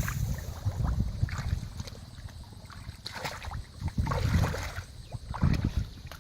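Water sloshing and splashing in irregular bursts, with wind buffeting the microphone.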